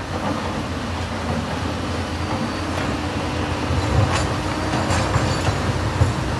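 Excavator's diesel engine running with a steady low rumble, with a few sharp metallic knocks about four, five and six seconds in.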